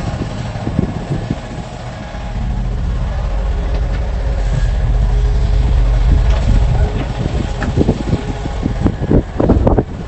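Excavator's diesel engine running under load with a deep rumble, which grows louder about two seconds in as it works. A run of clattering knocks comes near the end.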